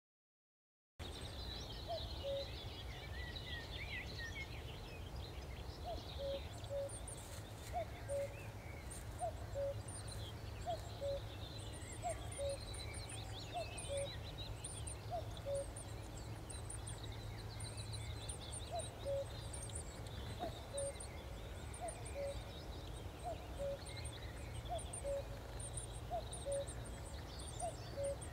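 Outdoor birdsong: several small birds chirping and calling in high, busy phrases, with a low two-note call, the first note higher than the second, repeated steadily about every second and a half, and faint high ticking. The sound starts abruptly about a second in.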